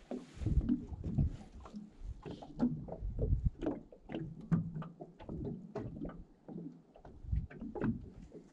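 Fly reel being wound in by hand, giving a string of irregular clicks and ticks, over water lapping against a small boat's hull and a few low thumps.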